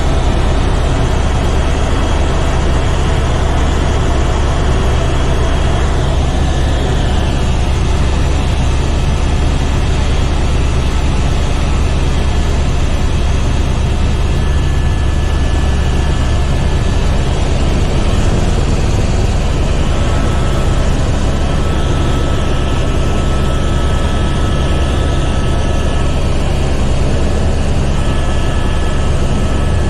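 Helicopter in flight heard from inside the cabin: a loud, steady drone of the rotor and turbine engine, with a strong low hum under a broad rushing hiss.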